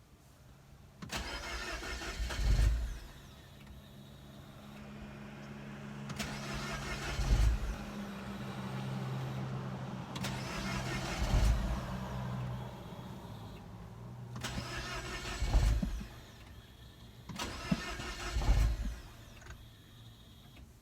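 Mini Cooper R56's N18 turbo four-cylinder being cranked from cold about five times, each try ending in a low thump without the engine settling into a run. It is a hard cold start that the owner suspects comes from a failing high-pressure fuel pump.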